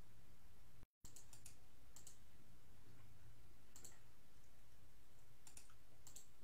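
Scattered short, sharp clicks, about half a dozen, over a steady low hum, with a brief total dropout in the sound just under a second in.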